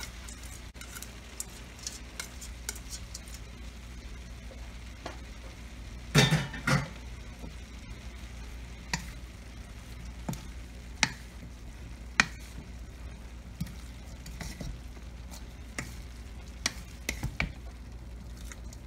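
Wooden spatula stirring and tossing vegetables in a wok while they sizzle faintly over the heat, with scattered scrapes and knocks against the pan, the loudest a pair about six seconds in. A low steady hum runs underneath.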